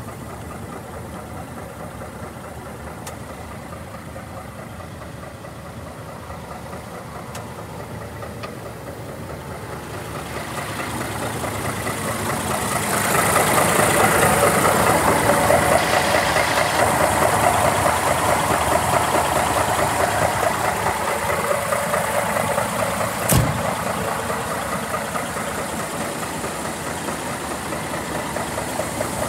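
Scania 470 truck's diesel engine idling steadily. It is muffled at first, inside the cab, and gets louder about halfway through. A single sharp knock comes about two-thirds of the way in.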